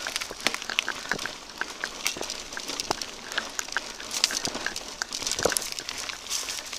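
Whyte T-129 S full-suspension mountain bike rolling fast down a dirt trail: tyres crackling and crunching over dry soil and debris, with a dense run of small clicks and rattles from loose bits against the handlebar-mounted camera. The bike itself is quiet.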